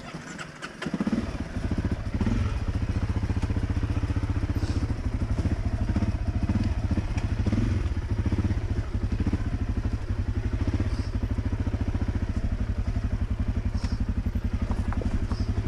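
Single-cylinder 250 cc enduro dirt bike engine chugging at low revs while crawling up a rocky trail, picking up about a second in. Occasional knocks and clatter from the bike on the rocks.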